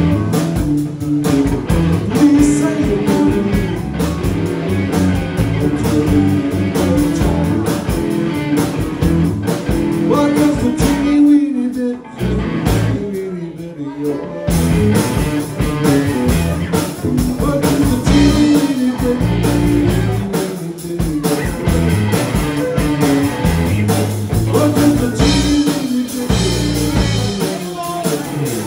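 Live rock band playing: electric guitar, electric bass and drum kit. The band drops out briefly about twelve seconds in, then comes back in.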